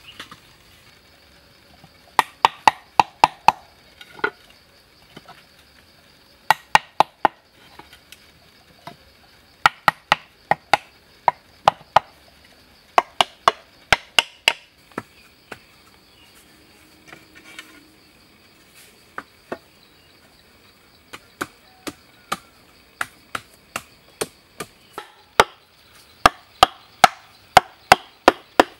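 Bamboo tubes knocking sharply as they are tapped and set into place. The knocks come in quick runs of several strikes, about four a second, with pauses between runs.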